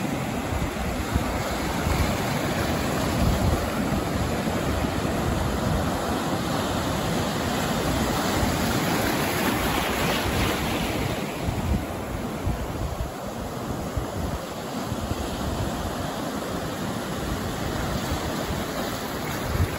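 Ocean surf breaking and washing up the shore, a continuous rush of white water that swells for a few seconds midway and eases slightly after, with wind buffeting the microphone.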